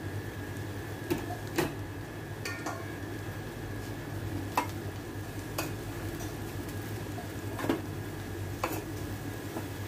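Metal spoon stirring sliced mushrooms and onions in a stainless steel pan, with several sharp clinks of the spoon against the pan over a steady low hum.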